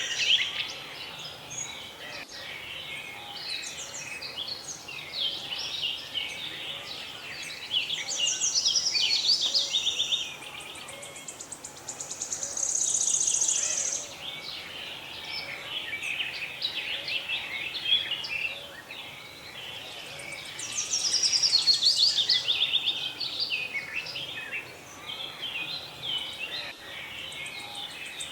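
Many small birds chirping at once in a busy, overlapping chorus. A high, fast buzzing trill swells and fades about three times.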